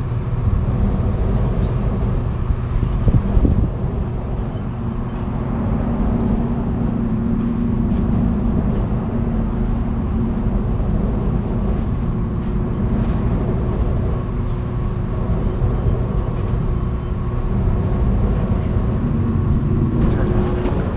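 Rooftop air-conditioning equipment running steadily: a constant low hum with a few steady tones and a faint high whine.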